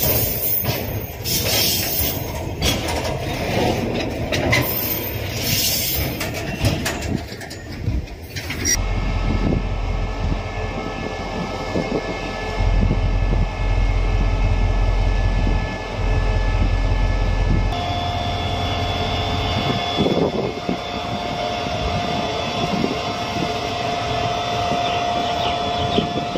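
Train sound: rapid rattling and clattering for the first nine seconds or so. Then an abrupt change to a steady diesel locomotive engine drone, with a steady whine joining about eighteen seconds in.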